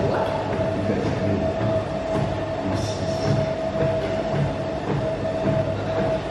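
A steady mechanical rumble with a constant thin whine running under it, unchanging in level.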